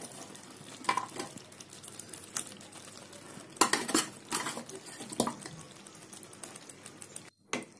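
Wooden spatula knocking and scraping in a pan of chicken curry: scattered knocks, the loudest a cluster about four seconds in, over a low steady hiss.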